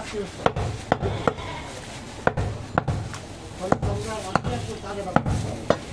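A large butcher's knife chopping goat meat against a wooden block: about nine sharp knocks at an uneven pace, some in quick pairs.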